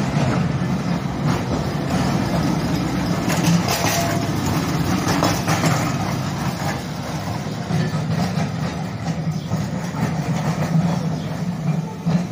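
Electric tram of the Seaton Tramway running past at low speed, its motors and wheels on the rails giving a steady low hum and rumble.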